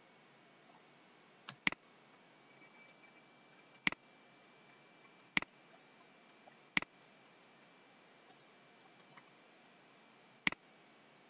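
Computer mouse clicking: about five sharp, separate clicks at irregular intervals, the first a quick double-click. A faint steady high-pitched tone sits underneath.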